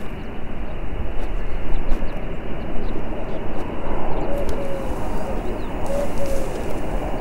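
Steady low outdoor rumble, with a dove cooing softly a few times from about four seconds in.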